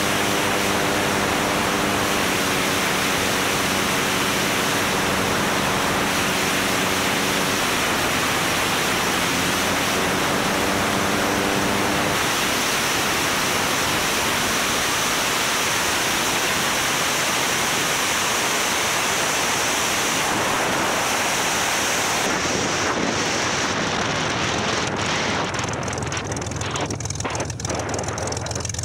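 Wind rushing over the microphone of a camera mounted on a single-engine light aircraft, with the engine's propeller drone underneath, stepping down in pitch twice as power is pulled back for landing. Later the wind noise dies down and a run of knocks comes in as the aircraft rolls on the grass strip.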